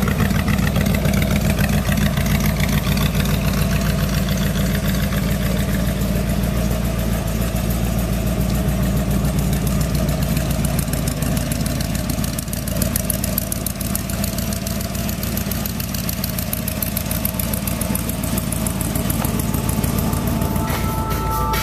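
The 1956 Ford F100 pickup's engine idling steadily, a low, even rumble.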